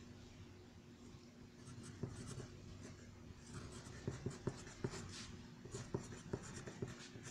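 Pencil writing on paper: faint scratching strokes with small light taps, which come more often in the second half.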